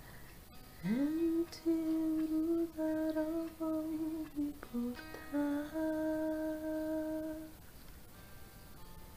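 A woman singing slow, long held notes over quiet electric guitar: her voice slides up into the first note about a second in, dips briefly near the middle, and the second held note stops shortly before the end.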